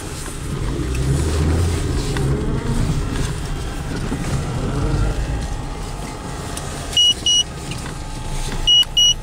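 Low rumble of a VAZ 2114's four-cylinder engine and tyres, heard from inside the cabin as the car rolls slowly, a little louder in the first two seconds. Short high electronic beeps sound twice about seven seconds in and four times near the end.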